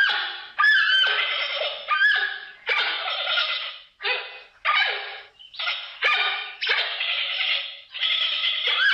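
A panda calling: a string of about ten short, harsh calls, each under a second with short gaps between, several opening with a brief rising tone.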